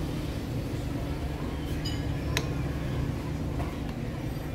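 Small metal parts clinking, with one sharp metallic click about two seconds in, over a steady low hum.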